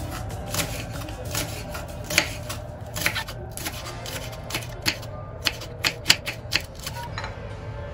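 Plastic cling film being pulled and stretched over a bowl, crackling in irregular sharp clicks.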